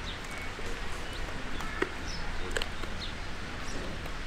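Outdoor ambience: a steady low background rumble with scattered short, high chirps and a couple of faint clicks, the sharpest just before the middle.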